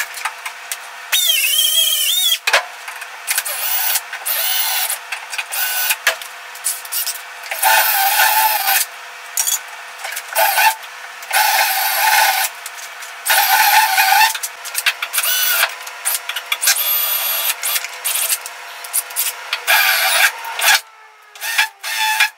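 Cordless DeWalt drill boring out spot welds in the rusted sheet steel of a Chevy C10 cab seam. It runs in repeated short bursts, each a high whine of bit cutting metal, with the motor's pitch wavering in the first burst and pauses between runs.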